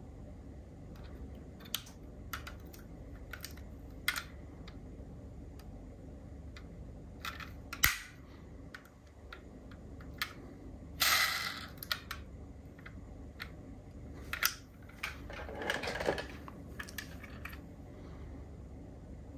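Light clicks and taps from diecast model cars being handled, with a louder sharp click about eight seconds in and two short rushing noises around eleven and sixteen seconds in.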